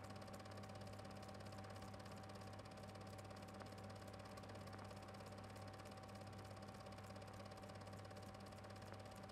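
Near silence: a faint, steady low hum with a thin constant tone and hiss, unchanging throughout.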